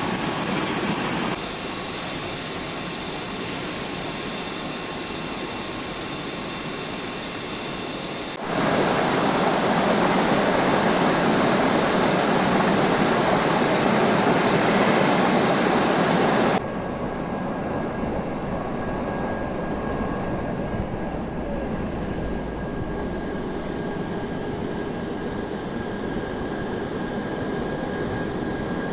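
Fruit and vegetable bubble washing machine running with a steady rushing noise. The noise drops abruptly about a second in, jumps back up louder a little before the third of the way through, and drops again just past halfway, after which a faint steady tone sits under it.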